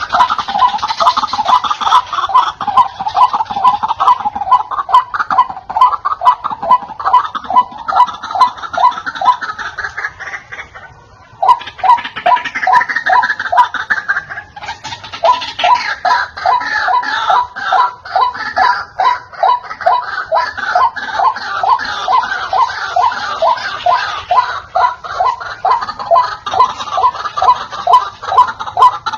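White-breasted waterhen calling loudly: a long, raucous run of rapidly repeated harsh notes, several a second, with a short pause about eleven seconds in.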